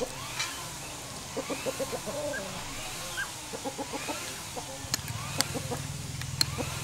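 Chickens clucking, with a quick run of clucks about a second and a half in and a few sharp clicks later.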